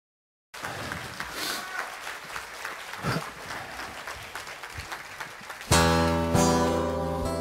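Audience applauding, then near the end an acoustic guitar starts strumming chords, louder than the applause.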